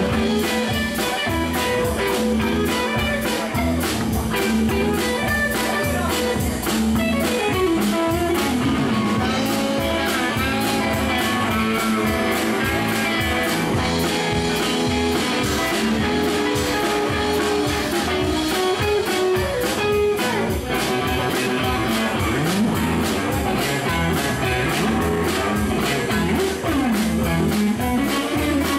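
Live blues-rock band playing an instrumental break: electric guitar in front, with bent, sliding notes, over a steady bass guitar and drum kit beat.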